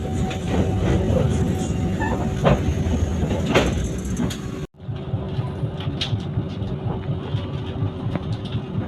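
Jayabaya passenger train running: a steady low rumble with a faint steady hum. It drops out for an instant a little past halfway, then carries on.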